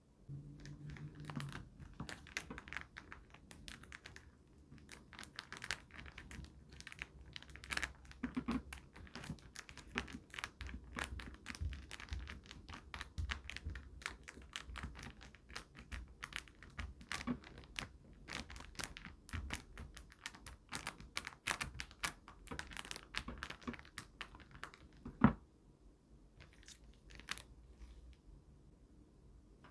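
Crinkling and rustling of plastic and paper candy-kit packaging being handled and torn, with many small quick clicks. Late on there is one sharp knock, after which the handling sound quiets.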